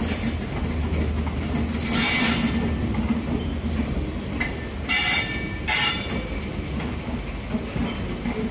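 Suburban EMU local train running on the rails: a steady low rumble and rattle of the coach, with three short high-pitched bursts about two, five and six seconds in.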